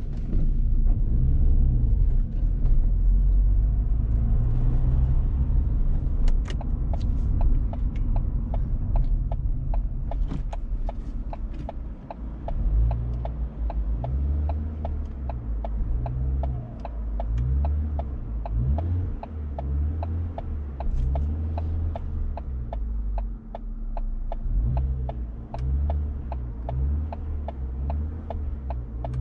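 Car cabin while driving: a steady low engine and road rumble, rising and falling. From about a quarter of the way in, an even ticking runs on at roughly two ticks a second.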